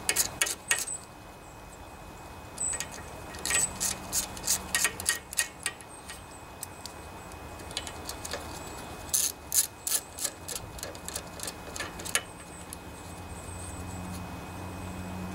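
Socket ratchet with an extension clicking in several short runs of rapid clicks, with pauses between, as already-loose valve-cover bolts are backed out of a Briggs & Stratton 16 HP OHV engine.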